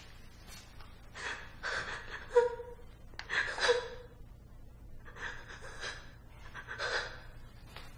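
A woman breathing hard, gasping and panting with effort in a run of short breaths. Twice near the middle her voice catches in a brief strained sound; these are the loudest moments.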